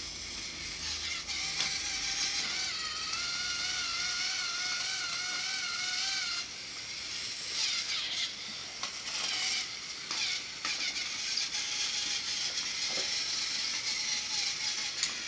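Small battery-powered toy train's electric motor and plastic gears whirring along a plastic track: a steady, slightly wavering whine that cuts off about six and a half seconds in. After that come scattered clicks and short bursts of whirring as the toy trains are handled.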